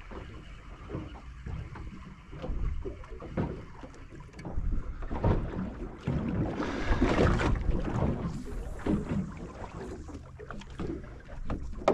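Water lapping and slapping against the hull of a small drifting boat, with wind on the microphone; the sound grows louder for a couple of seconds about halfway through.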